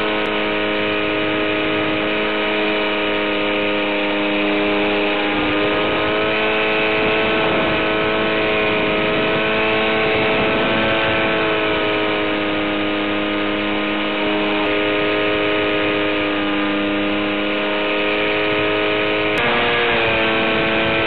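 Electric RC vehicle's motor whining steadily through the onboard microphone, as a cluster of held tones that shift slightly in pitch a few times.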